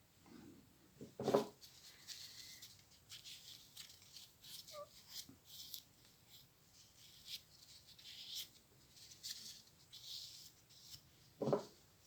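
Faint clicks and short scraping sounds of small metal parts being handled on a sewing machine's handwheel, with two louder knocks, about a second in and near the end.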